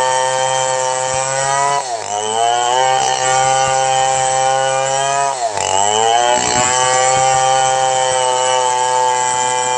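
Two-stroke chainsaw running at high revs while ripping a log lengthwise. Twice, about two seconds in and again past the middle, its pitch sags briefly as the chain bogs under load in the cut, then climbs back to full speed.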